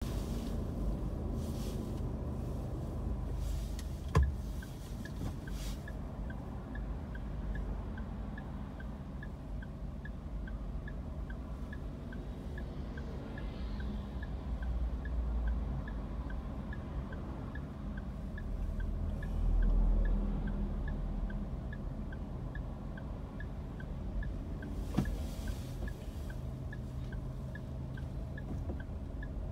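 Low, steady car engine and traffic rumble heard from inside a car's cabin in slow city traffic. A light regular ticking, about one and a half ticks a second, starts about six seconds in, and a sharp click comes about four seconds in.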